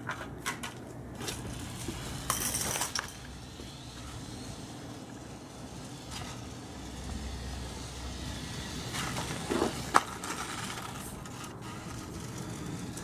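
Team Associated SC28 1/28-scale RC short-course truck driving on concrete, with scattered clicks and knocks and one sharp knock about ten seconds in.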